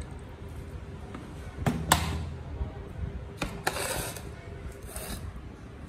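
A spoon scraping and clinking against an electric rice cooker's inner pot and a plate as cooked rice is served. There is one sharp clink about two seconds in, then two short scrapes.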